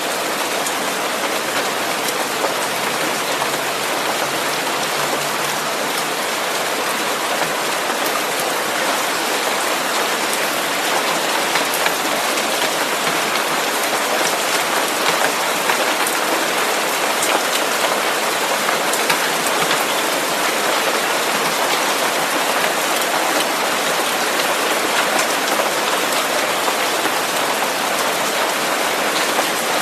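Steady, even rain-like hiss with faint scattered ticks like drops and no deep rumble, played as a masking noise for tinnitus.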